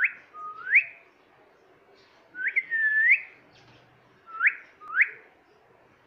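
Indian ringneck parakeet whistling: a string of about six short upward-sweeping whistles in pairs, the middle one dipping before it rises.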